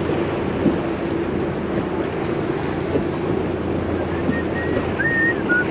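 A boat's motor running steadily under way, with water noise and wind on the microphone. Near the end, a thin high whistle wavers for about a second and a half.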